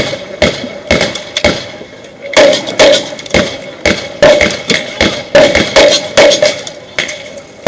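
About a dozen gunshots fired in quick, uneven succession during a cowboy action shooting stage, each followed by a short ringing, typical of steel targets being hit.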